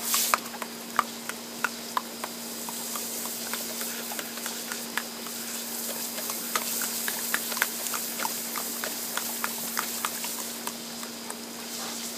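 Garden hose spray hissing steadily while a Labrador chomps at the jet, its jaws snapping shut in irregular clicks about two or three times a second, with a steady low hum underneath.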